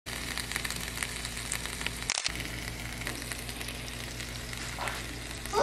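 Pork steaks sizzling and crackling as they fry on a flat griddle, with the sound cutting out briefly about two seconds in.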